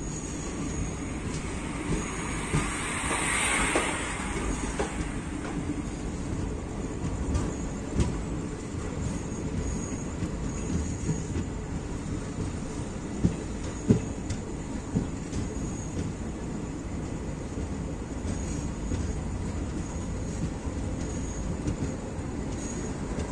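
Express train coaches rolling slowly into a station. Steady wheel-and-track rumble with clattering over rail joints, a brief hiss about three seconds in, and two sharp knocks a little past the middle.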